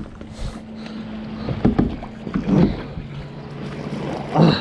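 Kayak on the water during a fish fight: wind and water noise with a faint steady low hum, a few short handling sounds in the middle, and a brief louder burst near the end.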